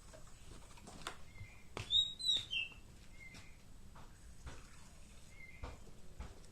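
Pet songbird chirping, with short calls every second or two and a louder, higher call of a few notes about two seconds in. Faint clicks and taps sound between the calls.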